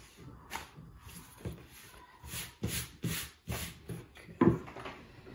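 A thin sheet of fresh egg-pasta dough is handled on a wooden board, lifted, flipped and laid back down, then the wooden rolling pin is taken up. It makes a series of soft swishes and rubs, several close together around the middle, with one sharper knock about four and a half seconds in.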